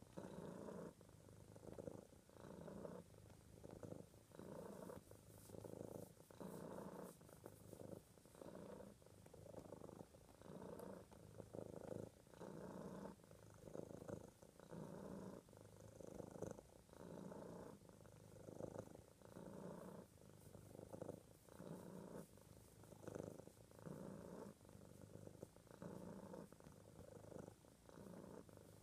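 Domestic cat purring steadily, the purr swelling and easing with each breath about once a second.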